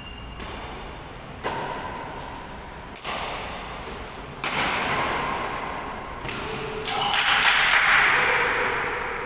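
Badminton rackets striking a shuttlecock in a rally, sharp smacks about every one and a half seconds that echo in the hall. They come faster about six seconds in, and then a louder burst of noise follows.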